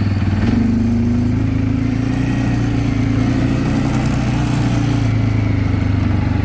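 Four-wheeler (ATV) engine picking up revs from idle about half a second in, then running steadily as the machine drives off.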